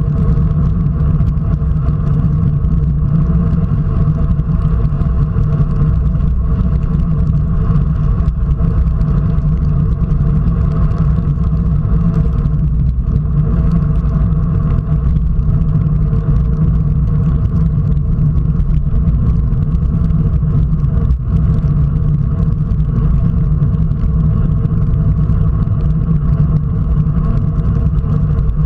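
Wind rushing over an action camera's microphone on a road bike at about 40 km/h, with road noise from the wet tarmac: a loud, steady rumble with a faint steady hum above it.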